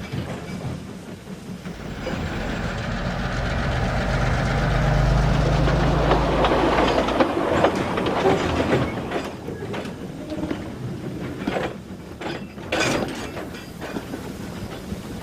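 Train sound effect: a passing train's low rumble swells over the first few seconds and fades away, with wheels clattering over the rail joints, followed by a run of separate clanks near the end.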